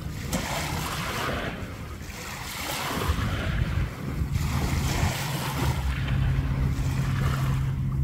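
Small waves lapping and washing onto a sand and shell beach, swelling and falling back every second or two. A steady low hum comes in about three seconds in.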